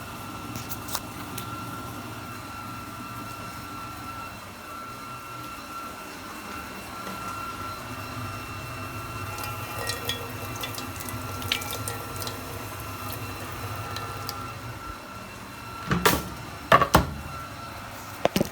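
Tap water running into a kitchen sink while garnish is rinsed under it, with small clicks and splashes. A few loud knocks come near the end.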